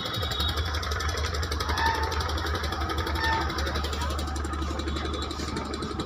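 An engine running steadily with a low, rapid throb, under a general outdoor din.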